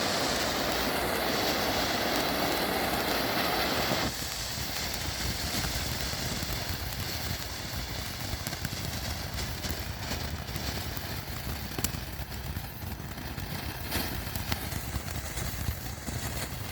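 TNT eruption fountain firework hissing steadily as it sprays sparks. The hiss drops sharply about four seconds in and carries on quieter, with a few sharp crackles in the second half.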